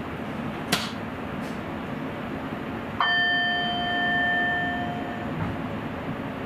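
A single bell-like ding from a chime in the train's driver's cab, three seconds in, ringing out over about two seconds. Under it runs the steady running noise of the Sprinter train, with a short click under a second in.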